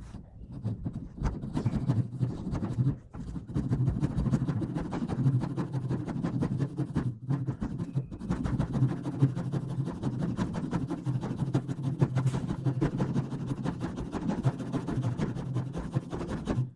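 Nextool Flagship Pro multi-tool's saw blade sawing back and forth through wood in rapid, continuous strokes. There is a short break about three seconds in, and the sawing stops abruptly at the end.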